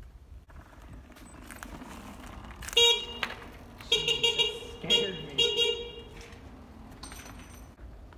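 Motorcycle horn beeping four times: a short toot, then three longer blasts in quick succession, over a faint low running sound from the bike.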